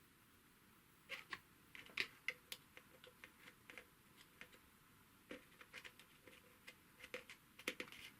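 Faint, scattered light clicks and taps, with near silence between them.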